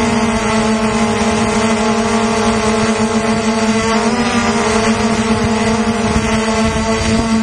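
Multirotor drone's motors and propellers humming steadily in flight, heard from the camera mounted on the drone itself, with wind rumble on the microphone. The pitch dips briefly about four seconds in.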